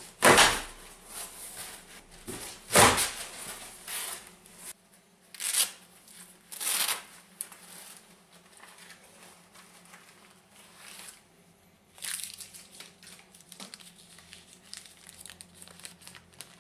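Cardboard box being opened: packing tape tearing and cardboard flaps rasping in several loud, sudden bursts during the first seven seconds. Softer paper crinkling follows near the end as a paper receipt is unfolded.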